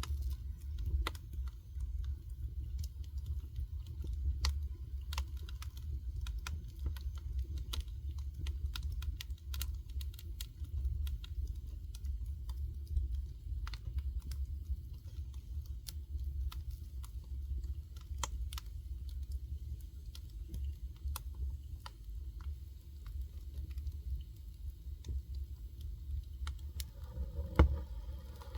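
Wood fire crackling: irregular sharp pops and snaps over a low steady rumble, with one louder knock near the end.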